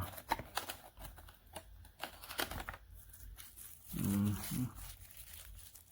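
Irregular crinkling, rustling and light clicks of earbud packaging being handled, with a brief spoken sound about four seconds in.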